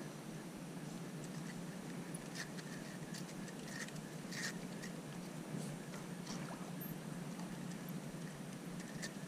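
Quiet outdoor background with a low steady hum and a few faint, irregularly spaced clicks.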